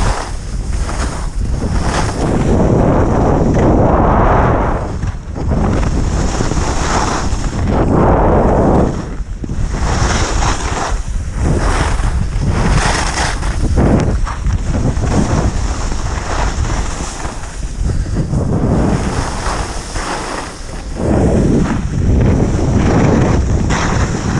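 Wind buffeting the microphone along with the hiss and scrape of skis on groomed snow, the noise swelling and fading in repeated surges every second or two as the skier turns.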